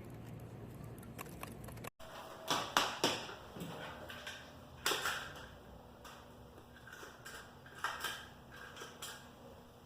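Desk stapler being pressed and snapped several times at irregular intervals, sharp clicks and clacks, as someone struggles to get it to work. Steady room hum before an abrupt cut about two seconds in.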